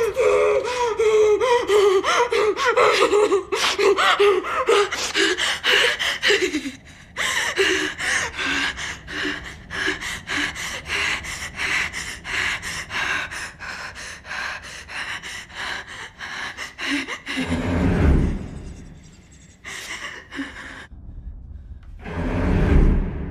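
A person gasping in rapid, panicked breaths, with whimpering cries that stop about a third of the way through, leaving quick short gasps. Two deep low rumbles swell near the end.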